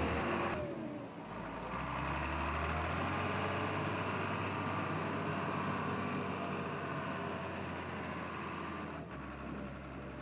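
An engine running steadily, with a change in the sound about half a second in and again near the end.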